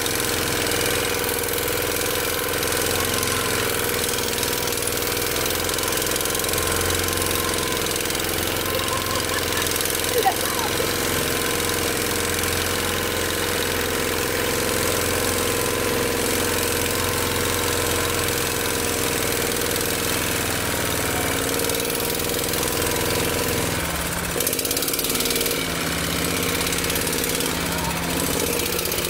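Walk-behind tractor (motoculteur) engine running steadily while driving along a dirt track, its note changing about 24 seconds in. A single brief click sounds about 10 seconds in.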